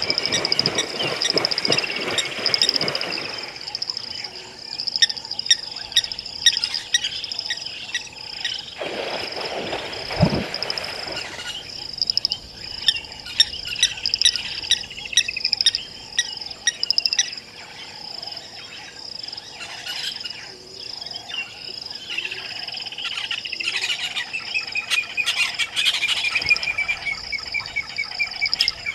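Birds chirping and calling in short trills over a steady, pulsing high insect trill. At the start a hippo splashes heavily into the water for a few seconds, and about ten seconds in there is a brief louder low burst.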